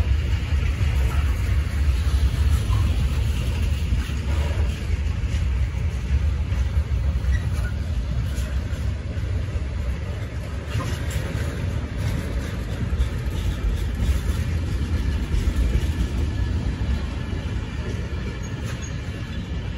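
Freight wagons of a mixed goods train rolling past close by: a steady low rumble of steel wheels on the rails, with a few faint clicks. The rumble eases slightly near the end.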